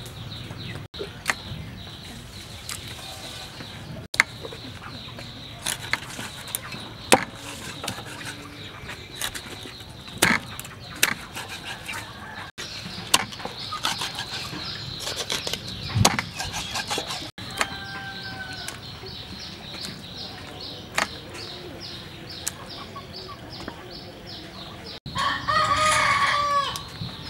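Kitchen knife cutting through a large fish on a wooden chopping block, its blade knocking on the wood now and then in sharp single strikes. Chickens cluck in the background, and a rooster crows loudly near the end.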